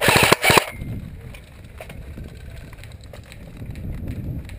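Airsoft electric gun firing two quick bursts of rapid clicking shots in the first second, followed by quieter low rustling.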